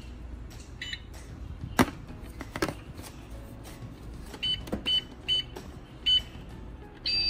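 Toy supermarket scanner and cash register beeping: a short electronic beep about a second in, then four quick beeps a few seconds later, with a couple of plastic knocks from handling in between. A longer steady beep starts at the very end.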